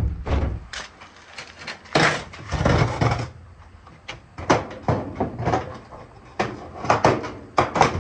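Knocks, clacks and a scrape as GE dryer cabinet parts are handled and fitted back together, with a longer scraping rattle about two seconds in.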